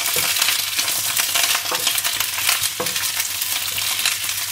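Boiled baby potatoes in their skins sizzling in hot oil in a nonstick frying pan on high heat, stirred with a wooden spatula that knocks against the pan several times.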